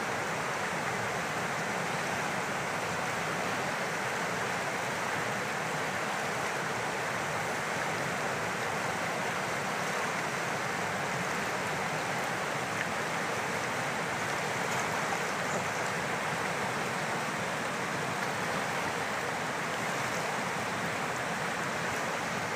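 Steady rushing of a fast-flowing river running over rapids, unbroken and even throughout.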